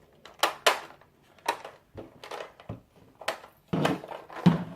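Hard plastic clicks and clatter from a toy gumball-machine playset being worked while it is jammed full of small plastic Shopkins figures. There are several separate sharp knocks, with a duller thump near the end.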